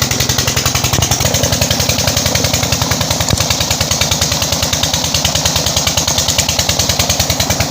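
20 HP Peter diesel engine running steadily with an even, rapid firing beat, its injector nozzle just repaired, driving a pump to water crops.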